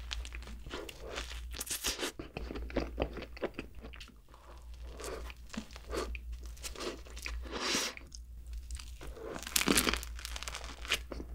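Close-miked eating sounds: bites into cream-filled bread and pastries, chewing, and crisp crunches of bread crust. The loudest crunches come near the end, as a baguette is bitten.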